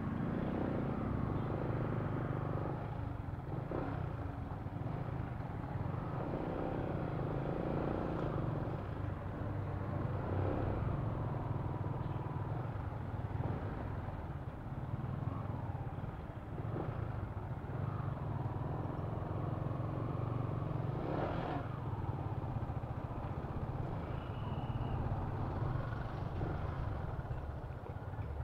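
Yamaha Sniper 155 underbone motorcycle's single-cylinder engine running steadily as it rides slowly through traffic, with road and wind noise picked up by a handlebar-mounted action camera.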